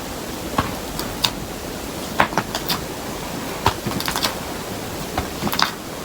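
Soft white glue-based slime being squished and pressed by hand, giving irregular sticky clicks and pops over a steady hiss.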